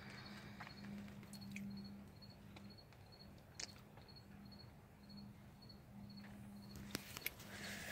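Faint cricket chirping at an even pace, about two short high chirps a second, over a faint low hum that comes and goes. A few sharp clicks come about a third of the way in and near the end.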